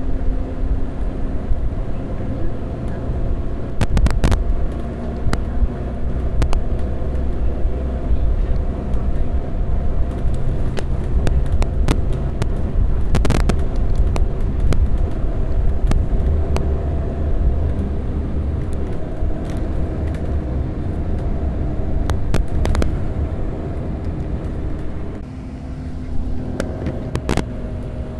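Double-decker bus engine heard from on board while running along the road, its note rising and falling with engine speed, with the rumble of the body and several sharp rattles and knocks. About three-quarters of the way through it drops to a quieter, lower steady note, as when the bus slows to idle.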